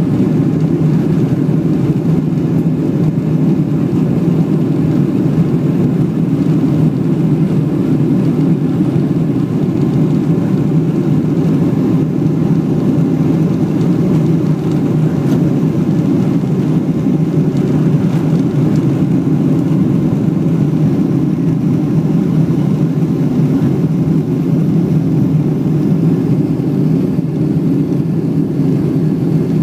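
Cabin noise of a Boeing 777-300ER taking off: its GE90 turbofans at takeoff power and the rushing air, heard as a loud, steady, deep rush that carries on unchanged through the takeoff roll and liftoff into the climb.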